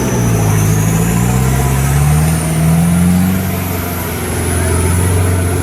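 Off-road 4x4 engine running under load, its pitch climbing over the first three seconds and then easing a little, with a high whine that rises and wavers above it.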